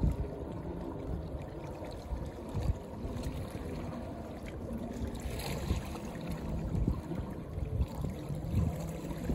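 Wind rumbling on the microphone in uneven gusts, over the wash and lapping of shallow seawater against rocks.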